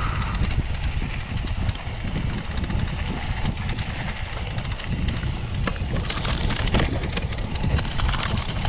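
Wind buffeting the microphone of a camera riding along on a mountain bike on a dirt trail, with the tyres on the trail and the bike rattling over bumps. The clicks and rattles come thicker from about two-thirds of the way in.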